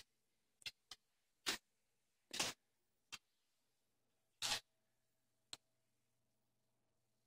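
A handful of faint, separate clicks and short sniffs, irregularly spaced: a small dog's claws on a hardwood floor and the dog sniffing.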